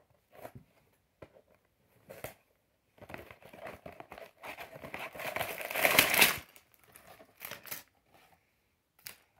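A cardboard Lego set box being opened and its plastic parts bags tipped out: a few short rustles, then a long stretch of plastic bags crinkling, loudest about six seconds in, then a few brief rustles.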